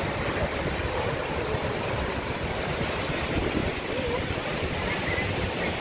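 Steady, even rush of water from Niagara Falls.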